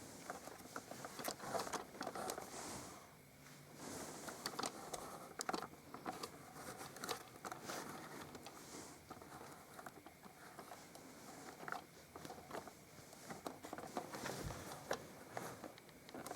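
Faint crinkling, rustling and small sharp clicks of a plastic toy helicopter being handled.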